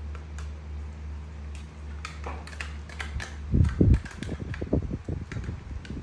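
A steady low hum that stops about halfway, then tabletop handling noises: two heavy low thumps, followed by irregular light clicks and rustles as a spoon works in a small stainless-steel bowl and a plastic snack packet is handled.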